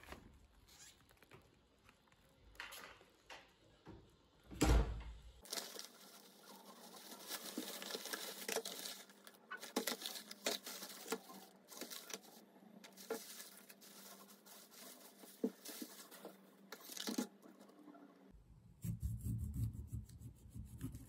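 Thin plastic carrier bag rustling and crinkling as it is opened, with plastic food trays knocking and clicking as they are unpacked. There is a single loud thump about five seconds in.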